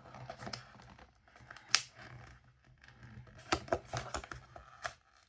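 Small cardboard blind box being pried at by hand, its tight lid resisting: scattered scrapes and sharp clicks, one loud click a little under two seconds in and a cluster of clicks around three and a half seconds.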